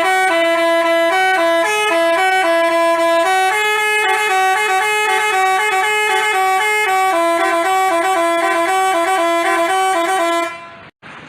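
Basuri telolet horn playing a fast melody of stepping tones, several horn notes sounding together, before it cuts off about ten and a half seconds in.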